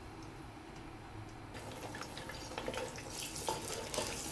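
Onion puree going into hot cooking oil in a large pot: after a quiet start it begins to sizzle and spatter about a second and a half in, the crackling growing through the rest.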